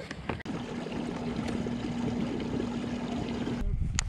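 Kayak's electric trolling motor running with a steady hum over the wash of water, cutting off shortly before a sharp click near the end.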